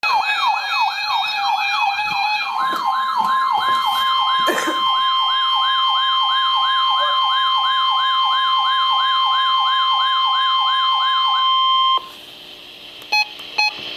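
Emergency alert attention tones: a siren-like tone sweeping up and down about twice a second, joined a few seconds in by a steady high tone, both stopping abruptly about twelve seconds in. Two short beeps follow near the end. The tones announce a broadcast severe thunderstorm warning.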